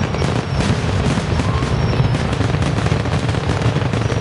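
Fireworks finale barrage: many aerial shells bursting in quick succession with crackling, the booms running together into a continuous rumble.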